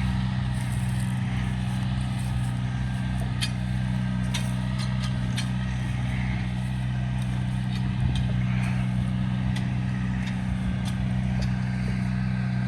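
A vehicle's engine running steadily at an even speed, with a few light clicks and rattles over it.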